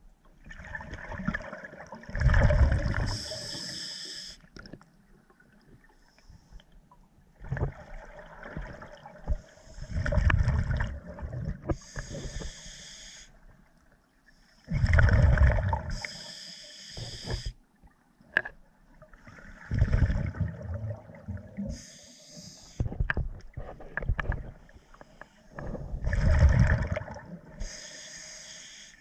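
Scuba diver breathing through a regulator underwater: about five slow breaths, each a rush of bubbling exhaled air followed by the regulator's hiss, with quiet pauses between.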